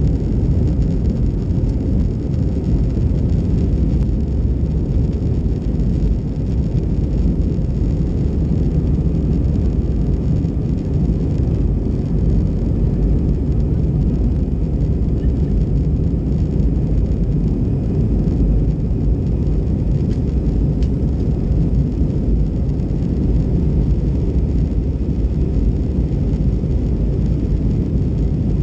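Cabin noise inside an Airbus A320 in climb: a steady low rumble of the jet engines and the air rushing past the fuselage.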